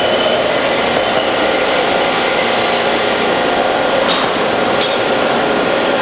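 New York City Subway R142 train pulling into the station: a steady loud rumble of wheels on the rails, with high-pitched metallic whining and squealing over it.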